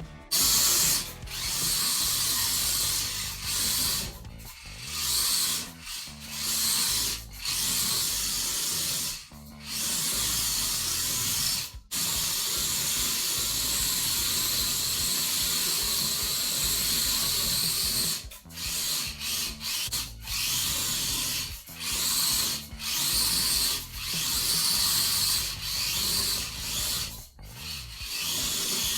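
Wltoys K989 mini RC car on aluminium upgrade wheels, driving and drifting: its small electric motor and drivetrain whine in long bursts as the throttle is applied and released, with the tyres sliding and scrubbing across the surface. The bursts come in quick on-off stabs in the last third.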